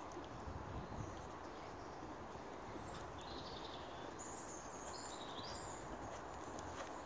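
Faint, muffled hoofbeats of a horse moving over a dressage arena surface, under a steady outdoor background noise, with a few short bird chirps near the middle.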